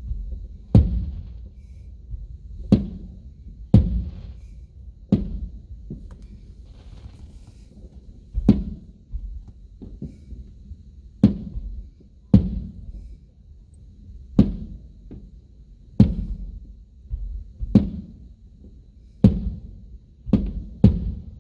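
Aerial firework shells bursting one after another, about fifteen sharp booms one to two seconds apart, each followed by a low rumbling echo.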